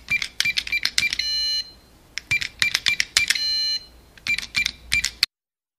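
Intro sound effect: runs of quick sharp clicks with short beeps, each of the first two runs ending in a bright bell-like ding. A third run of clicks cuts off abruptly into silence near the end.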